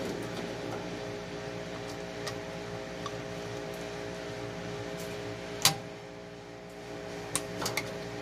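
Plastic wiring-harness plug being worked onto a washing machine motor's terminal block: scattered small clicks, one sharp snap a little past halfway as it seats, then a few lighter clicks near the end. A steady mechanical hum runs underneath.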